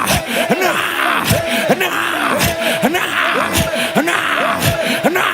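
A man's voice praying rapidly in tongues: short, sharp syllables several a second, each falling in pitch.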